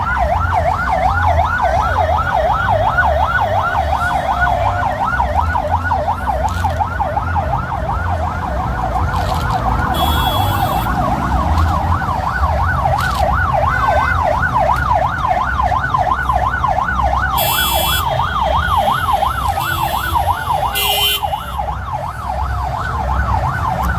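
Vehicle siren on a fast yelp, its pitch sweeping up and down about three times a second without a break, with a second, slower-wailing siren beneath it and a low rumble throughout.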